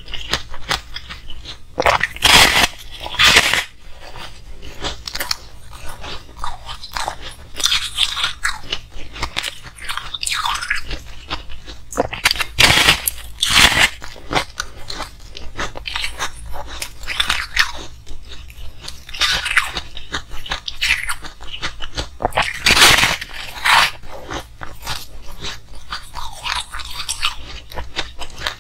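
Crunching bites and chewing of a block of moulded, coloured frozen ice close to the mouth, with brittle crackling between the bites. The loudest bite crunches come about two to three seconds in, around twelve to fourteen seconds in, and around twenty-three seconds in.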